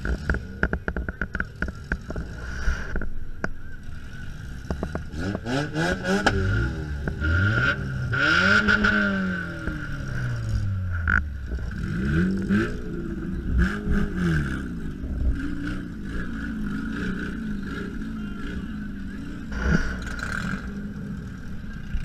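Demolition-derby Honda Civic's engine, heard from inside the cabin, revved up and down about four times. There is rattling and clattering of the stripped car in the first few seconds and a single sharp knock near the end.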